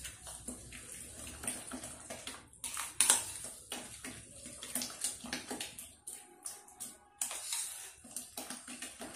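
A hand squishing and mixing a milk-soaked bread pudding batter in a glass bowl: irregular wet squelches, one louder about three seconds in.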